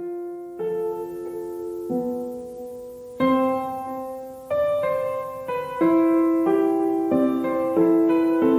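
Background piano music: chords struck one after another, each fading away, with the changes coming quicker from about three seconds in.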